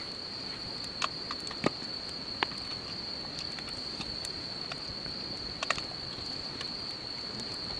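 Wood fire crackling in a metal fire pit, with scattered sharp pops, over a steady high-pitched trill of night insects.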